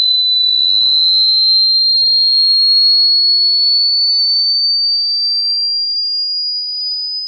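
Dog-whistle sound clip played back through a speaker: one loud, high steady tone that slowly rises in pitch.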